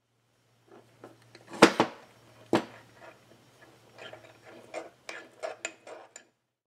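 Chainsaw crankcase and small parts being handled on a steel workbench: two sharp knocks, one about a second and a half in and one about two and a half seconds in, then a run of lighter clicks and scrapes as parts are fitted into the case.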